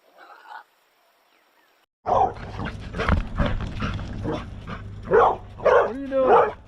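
Excited tracking dog barking: a run of loud, sharp barks starting about two seconds in, with a gliding whining cry near the end, over a steady low hum.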